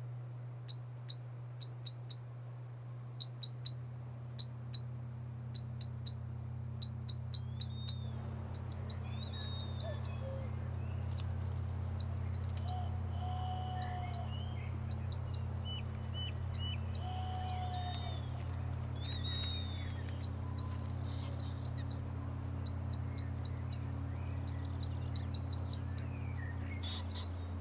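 Bird-like chirps and whistled calls, several short curving chirps and a few lower falling whistled notes, over a steady low drone. For the first several seconds a run of short, quick high ticks comes before the calls begin.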